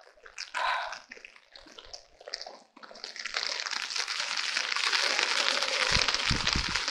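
Rain falling onto puddles and waterlogged ground: a steady, even hiss that builds about three seconds in and holds. A few low thumps come near the end.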